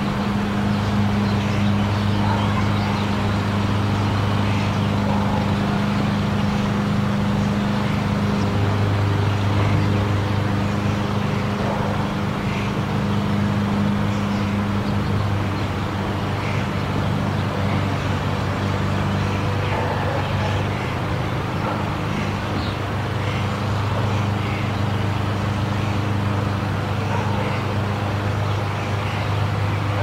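Monorail car running along its rail: a steady low mechanical hum over a rumble, its pitch shifting slightly every several seconds.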